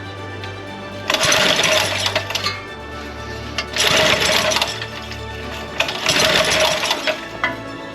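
Three pulls on the recoil starter of a Briggs & Stratton 3 hp engine, each a second-long rattle of cranking, about two and a half seconds apart. The engine does not catch. Background music runs underneath.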